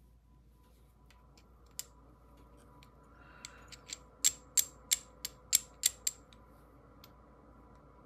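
Small parts of a magnetic fidget toy being handled and fitted together: one click, then a quick run of about eight sharp clicks, roughly three a second, about halfway through.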